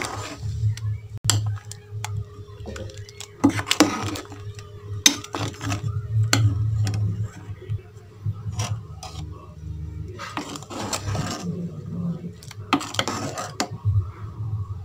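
Metal ladle stirring liquid sambar in an aluminium pot, with scattered clinks and a few longer scrapes of metal on metal, over a steady low hum.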